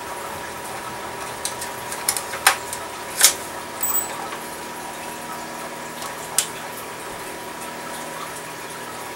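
A few sharp clicks and taps of a metal Torx screwdriver and screws against the Xbox 360's steel bottom plate as the long case screws are backed out. Most come between about one and four seconds in, with one more later, over a steady hiss with a faint high whine.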